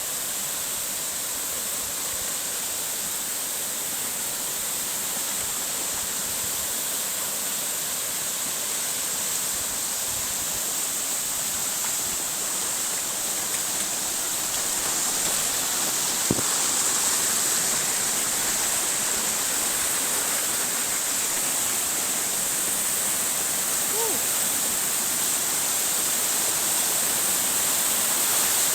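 Waterfall: a steady rush of falling water that grows a little louder about halfway through.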